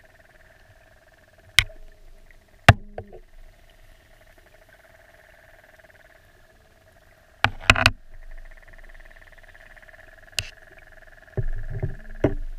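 Sharp clicks and knocks against an underwater camera housing, over a steady high hum: a spider crab's legs and claws touching the camera. Single clicks come a few seconds apart, with a quick cluster about halfway through and a run of knocks near the end.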